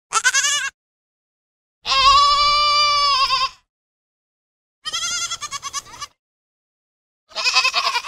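Goat bleating four times, with silence between calls: a short wavering bleat, a long steady held bleat, a quavering broken bleat, and a short bleat near the end.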